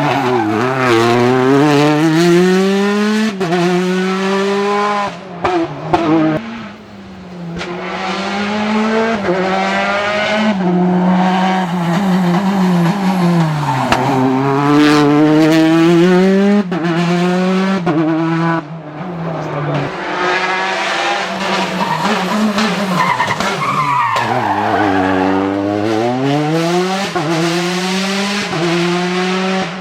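Rally car engines revving hard, the pitch climbing and dropping again and again through gear changes and braking.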